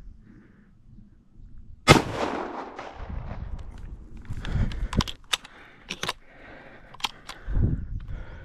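A single shotgun shot about two seconds in, loud and sudden, with an echo that dies away over about a second. Rustling and several sharp clicks follow.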